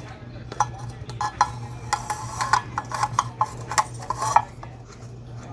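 Hard parts of an e-bike controller clicking and scraping together as the circuit board is slid back into its case, a run of short clicks and scrapes with the loudest near the end, over a steady low hum.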